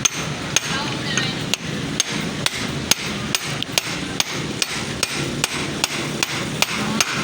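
Hammer tapping on metal in an even rhythm, about two and a half blows a second.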